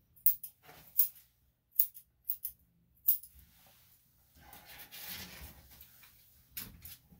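Grooming scissors snipping a dog's coat: about seven short, sharp, separate snips, with a softer rustling noise for about two seconds midway.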